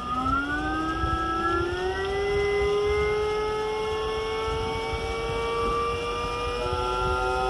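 72 V 4 kW Datai PMSM electric motor spinning up with no load. Its whine steps up in pitch during the first two seconds and then climbs slowly and steadily, and a second whine joins near the end.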